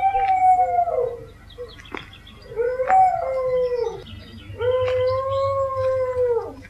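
Dogs howling: three long howls, one at the start, one about two and a half seconds in and one about four and a half seconds in. Each is held on a steady pitch and drops away at its end, with short yelping notes under the first.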